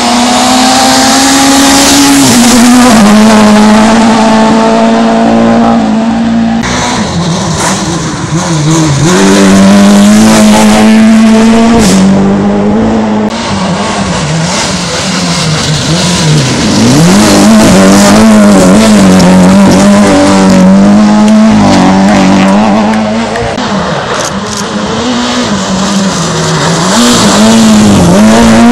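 Rally cars at full speed on loose gravel roads. The engines are held high in the revs, with a note that steps down and wavers as the drivers shift gears and lift off the throttle. Gravel is thrown up by the tyres.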